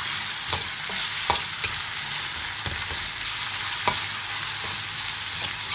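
Pieces of salt cod frying in a metal frying pan with a steady sizzle. A utensil stirring the pieces clicks against the pan a few times.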